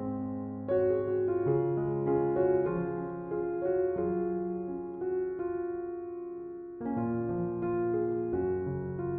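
Soft, slow piano music: gentle chords and single notes, thinning to a held chord midway and picking up again about seven seconds in.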